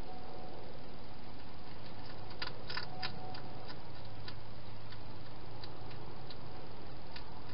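A hedgehog eating in a plastic feeding box: scattered crisp clicks of its chewing, with a quick cluster about two and a half to three seconds in, over a steady hiss.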